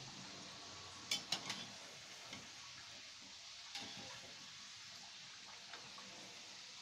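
Kachoris deep-frying in hot oil in a steel kadhai with a steady sizzle. A metal slotted spoon clinks against the pan a few times about a second in and once more near four seconds.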